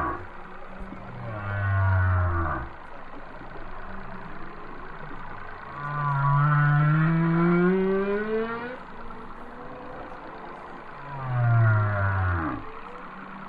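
Humpback whale song, a recording laid over the footage as a soundtrack. A long low call comes about a second in, a longer call climbs steadily in pitch around the middle, and another low call comes near the end.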